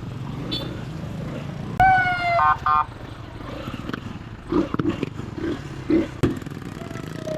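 Motorcycle engine running steadily under way. About two seconds in, the bike-mounted electronic police siren sounds a loud horn-like tone that sags slightly in pitch for under a second, then gives two short blips.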